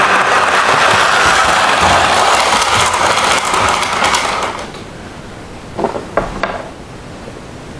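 Model train locomotive running along the track close by, its motor and wheels making a loud, steady rushing noise that drops away about four and a half seconds in. A few light clicks follow.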